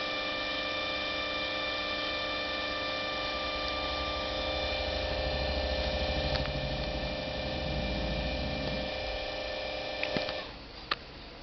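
Steady whine and hum with several fixed pitches from the laptop as it runs Windows setup; it cuts off suddenly near the end. A couple of sharp clicks follow.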